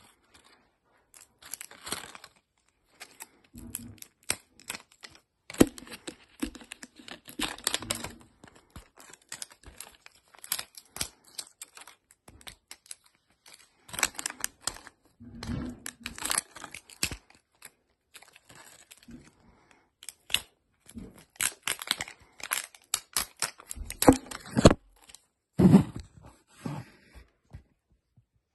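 Thin plastic wrapping crinkling and tearing in irregular bursts with short pauses as a Zuru 5 Surprise Mini Brands capsule is unwrapped by hand.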